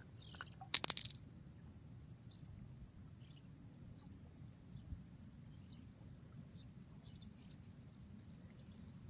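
Marbles clacking on a marble run track: a short cluster of sharp clicks about a second in, then only faint scattered high ticks over a low steady hum.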